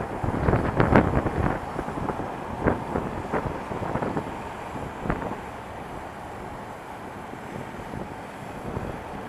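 Wind noise buffeting the microphone of a camera worn by a cyclist riding in traffic, over a low rumble of the vehicles around. A few sharp knocks and rattles come in the first two seconds and singly over the next few, as the bike jolts on the rough road; after that the noise settles.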